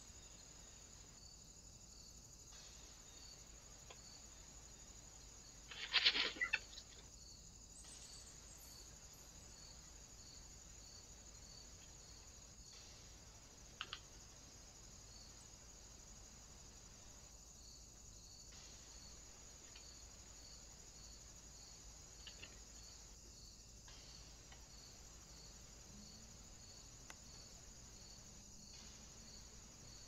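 Faint outdoor background of steady hiss with insects chirping in a regular high pulse. About six seconds in, a short harsh burst stands out as the loudest sound, and a single sharp click comes near fourteen seconds.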